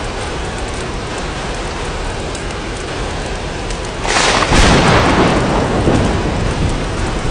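Steady rain falling on glass, with a clap of thunder about four seconds in that rumbles and fades away over the next few seconds.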